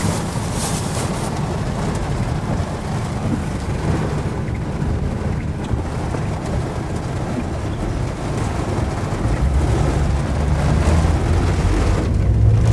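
Heavy rain pouring on a car's roof and windshield, heard from inside the cabin. Under it runs a low engine and road rumble that grows stronger about nine seconds in.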